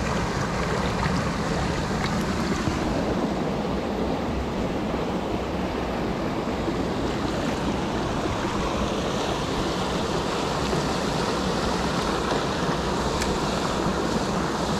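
Rushing water of a small mountain creek, a steady even noise.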